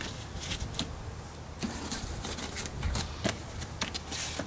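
Handling noise from a molded plastic door liner being worked by hand: scattered light clicks, taps and rustles as the wiring harness is tucked in and the liner is pressed flat against the door, over a faint steady low hum.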